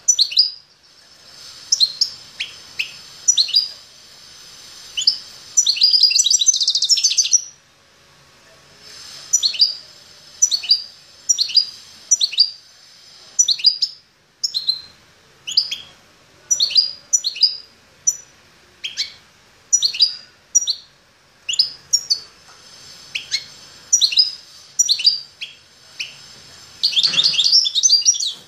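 Caged finch calling with short, sharp chirps, roughly one a second. Twice, around six seconds in and near the end, it breaks into a quick run of notes lasting about two seconds.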